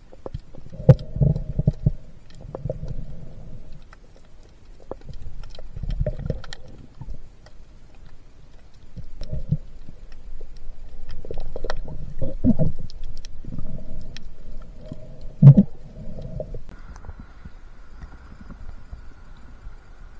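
Muffled underwater sound through a submerged camera: low surges of moving water every second or two, with scattered small clicks and two sharper knocks, one near the start and one about three-quarters through. A faint steady hum comes in near the end.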